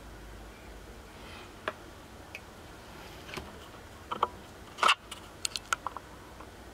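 Light clicks and taps from handling test leads and probe tips on a small circuit board, scattered at first, then a louder clatter about five seconds in and a quick run of clicks after it.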